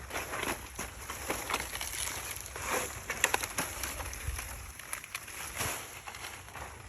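Irregular crackling and rustling of dry thatch branches and sticks being handled, with scattered sharp snaps and clicks.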